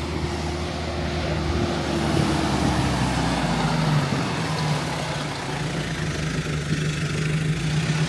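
Off-road 4x4 vehicle engine running steadily, with a second, higher engine note falling away about two to three seconds in.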